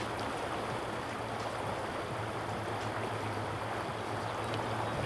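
Shallow river water flowing steadily over a gravel riffle, an even rushing sound.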